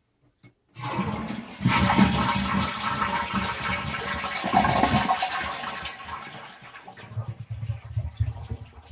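Toilet flushing: a click of the handle, then water rushing out of the tank, fading after a few seconds into low gurgling as the bowl drains.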